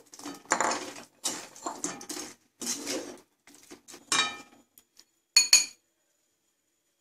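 Metal spoon scraping and clinking against a pan while stirring fried chicken pieces into thick, wet masala. There are short uneven scrapes, then two sharp ringing clinks about five and a half seconds in.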